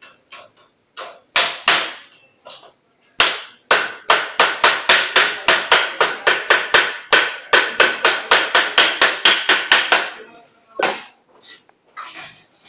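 Thin galvanized sheet steel being beaten with a wooden bar to fold its edge over, each blow a sharp knock with a metallic ring. A few separate strikes at first, then a fast even run of about four blows a second for some seven seconds, then a couple of single knocks near the end.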